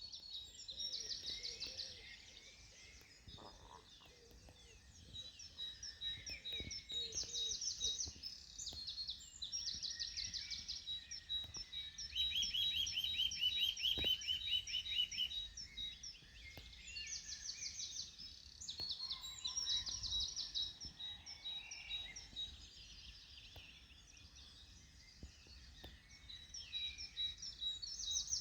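Several songbirds singing in a morning chorus: short, rapid trilled phrases repeat every few seconds over a steady run of evenly spaced high notes.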